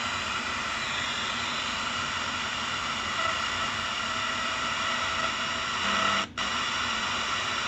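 Steady hiss and static from the Legenda P-305T radio-cassette recorder's speaker with its VHF radio tuned between stations, the sign of poor reception inside a shielded building. The noise cuts out for an instant about six seconds in.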